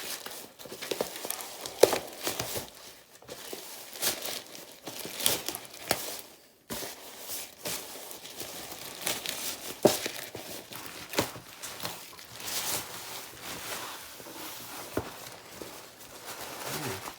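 Shipping packaging being handled and torn open to unpack a keyboard and mouse set: irregular crinkling and rustling with a few sharper snaps.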